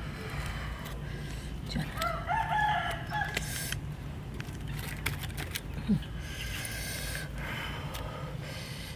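A rooster crows once, a long call about two seconds in, over a steady low background rumble.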